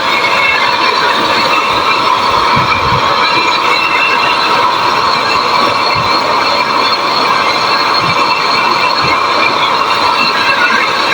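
Brazing torch flame hissing steadily while a copper discharge pipe is brazed onto a replacement air-conditioner compressor.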